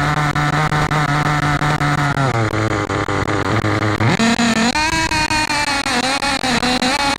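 Nitro engine of a Losi 8ight buggy running close to the microphone. It holds steady revs, eases off about two and a half seconds in, then revs up sharply about four seconds in and holds the higher revs.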